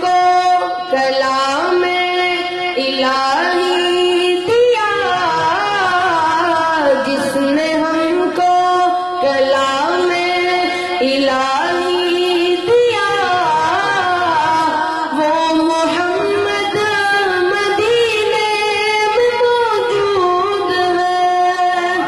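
A boy singing a naat, an Urdu devotional song, without instruments, drawing out long notes that slide and waver up and down.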